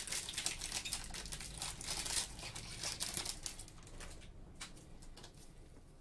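Wrapper of a trading-card pack crinkling and crackling as it is opened in the hands. The crackling dies down after about three or four seconds into faint clicks of the cards being handled.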